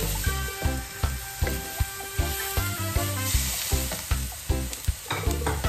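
Chicken and bell peppers sizzling in a stainless-steel wok as they are stirred and tossed with a wooden spatula, under background music with a steady beat.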